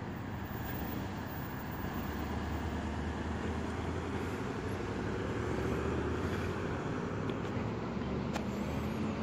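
Police SUV pulling away from the curb and driving off: steady engine hum and tyre noise, with a faint rising whine as it accelerates.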